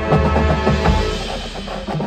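Marching band playing: sustained wind and brass notes with mallet percussion over bass-drum and drum hits, the volume easing somewhat in the second half.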